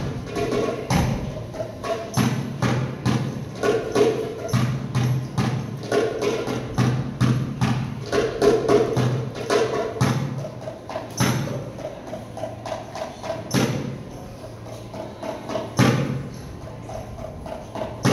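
Goblet drum (doumbek) played by hand in a fast rhythm of deep, ringing low strokes and sharp rim strokes. About ten seconds in, the rhythm thins out to a few single strong strokes about two seconds apart.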